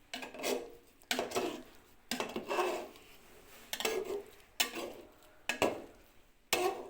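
Metal cookware and utensils clattering as they are handled: a series of separate clanks and knocks, roughly one a second, each ringing briefly.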